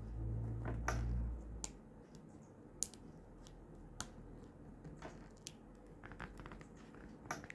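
Sticky stickers being handled close up, making scattered short tacky clicks and crackles. A low handling rumble comes in the first second or so.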